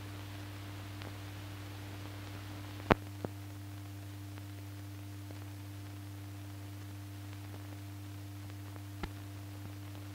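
Blank soundtrack of an old film transfer: a steady low hum with hiss, broken by a sharp pop about three seconds in, a smaller click just after it, and another click near the end.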